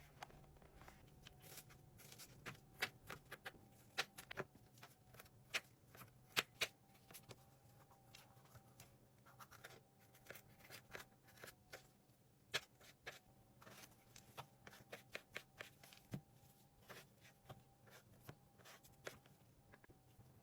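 Scattered light clicks, taps and knocks of hands handling food and kitchen utensils, coming irregularly rather than in a steady chopping rhythm, over a faint steady hum.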